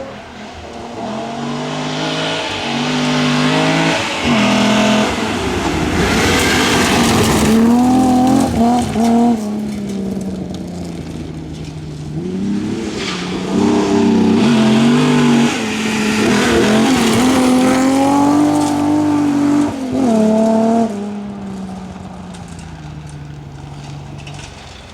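Volvo 164 rally car's inline six-cylinder engine revving hard, its pitch climbing and then dropping again and again as it works through the gears. It swells loudest in several spells through the middle and fades near the end.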